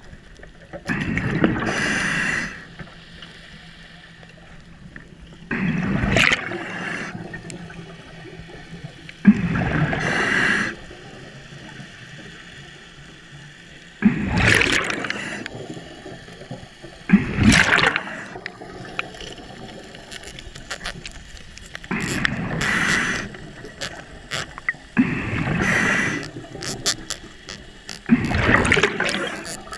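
Scuba diver's regulator breathing underwater: a loud burst of bubbling exhalation about every three to four seconds, eight in all, with a quieter steady background between breaths.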